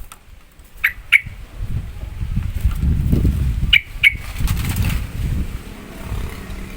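Yellow-vented bulbul giving two pairs of short, sharp calls, about a second in and again about four seconds in, over a low fluttering rumble.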